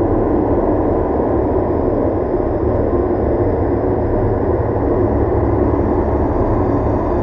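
Dark ambient drone music: a steady, dense low rumble with faint high held tones above it, unchanging throughout.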